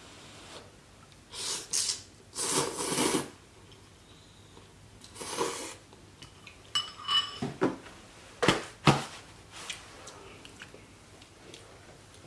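Instant noodles being slurped from chopsticks, three noisy slurps in the first six seconds, followed by a run of sharp clinks of chopsticks against the bowl.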